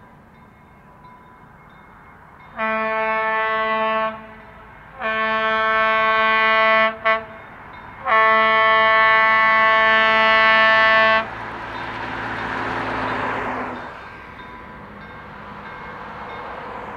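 East Broad Top M-1 gas-electric doodlebug railcar sounding its horn in the grade-crossing pattern: long, long, short, long. The horn is followed by the rising rumble of the approaching railcar, which fades for a moment and then swells again near the end.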